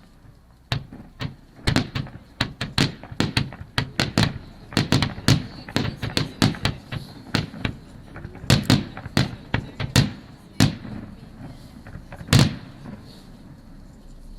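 Fireworks shells bursting in rapid, irregular succession, many sharp bangs overlapping in dense volleys, with the loudest single bang near the end.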